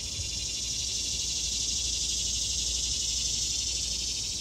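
Steady insect chorus: a dense, high, finely pulsing buzz that swells slightly in the middle and eases toward the end.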